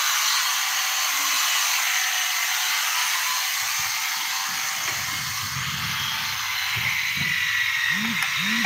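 Small electric drill spinning a headlight-restoration pad against a plastic headlight lens: a steady, high-pitched whir with a hissing rub of the abrasive on the plastic.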